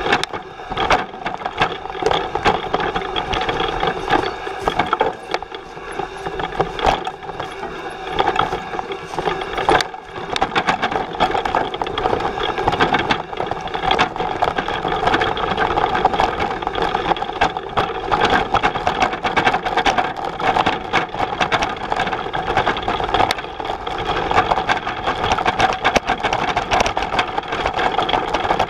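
Bullitt cargo bike clattering and rattling as it rolls over a rough forest trail, with many irregular knocks from the frame and cargo box over a steady mechanical hum.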